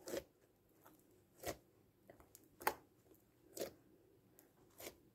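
Homemade PVA-glue slime squeezed and kneaded by hand, giving faint squelching pops about once a second. The slime is stiff, which the maker thinks comes from overactivating it.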